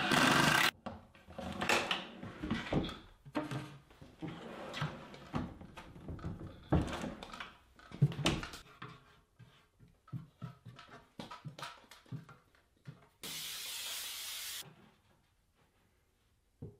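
Plywood drawer and metal drawer slides being fitted and handled: scattered knocks, clicks and taps. Two short steady runs of a cordless drill driving screws, one stopping under a second in and one about a second and a half long near the end.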